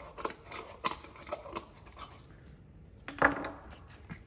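Light clicks and taps of glass spice jars being handled on a kitchen worktop, with one louder knock about three seconds in as a jar is set down.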